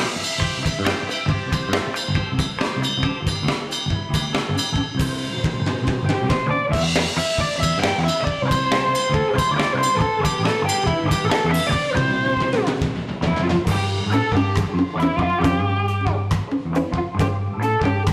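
Live rock band playing an instrumental passage with no singing: a Stratocaster-style electric guitar plays lead over a steady drum-kit beat.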